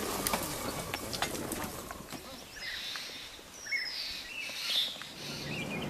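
Forest ambience with faint, scattered bird calls, one a short falling whistle a little past halfway, and a few light clicks in the first second.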